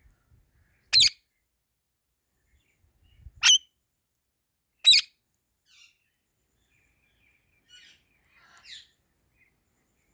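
Indian ringneck parrot giving three loud, short, shrill screeches, the second and third about a second and a half apart, followed by a few much fainter chirps.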